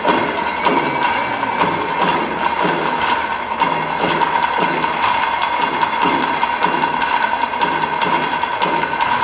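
A drum troupe playing a steady, driving rhythm, with a steady high tone held over the beat.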